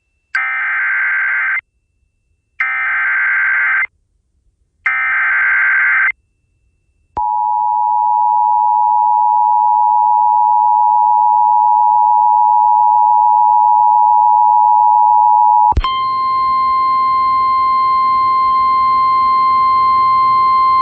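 Emergency Alert System activation on FM radio. Three identical screeching SAME header data bursts come first, about a second apart. About seven seconds in, the steady two-note EAS attention tone starts and holds for roughly eight and a half seconds. It then switches suddenly to a single steady tone a little higher in pitch, with hiss behind it.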